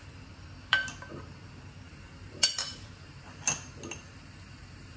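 Metal spoon knocking and scraping against a wok and a small wire-mesh strainer: about four sharp clinks a second or so apart, the loudest a quick double tap in the middle, as fried coconut curds (latik) are scraped out to drain off their coconut oil.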